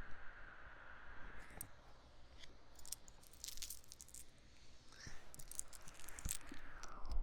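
Quiet close-miked rustling with small crisp clicks, bunched a few seconds in and again near the end, over a faint breathy hiss.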